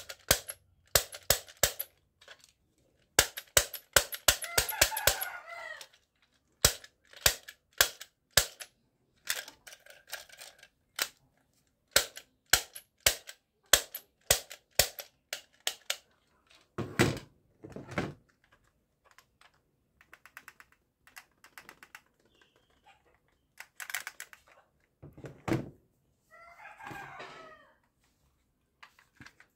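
Plastic toy gun's trigger and mechanism clicking sharply, singly and in quick runs, with a longer rattling stretch about four seconds in. Two dull knocks near the middle and a plastic scrape near the end as the toy guns are handled.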